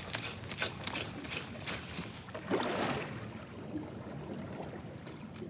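Water slapping against the hull of a small fishing boat, with several sharp splashes in the first two seconds and a louder rush of water about two and a half seconds in.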